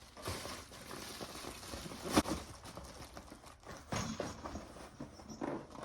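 Scattered clicks and knocks from a vehicle's broken inside door handle being worked; the handle is busted and no longer opens the door. One sharp click about two seconds in is the loudest.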